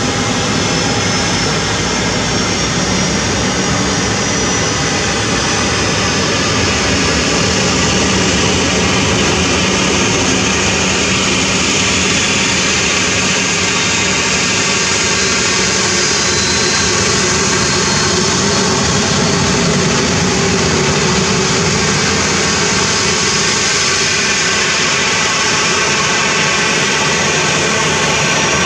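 Boeing 737-800 airliner's jet turbines running on the ramp, a loud, steady high whine over a broad rumble.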